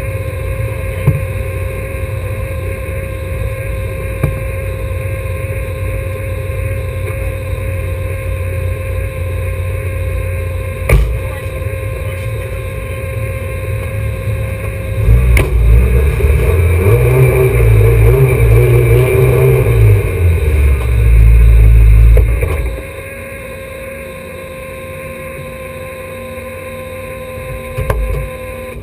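Alfa Romeo GTA race car's four-cylinder engine idling, heard from inside the cabin. About fifteen seconds in it is revved for several seconds, then drops back to a quieter idle.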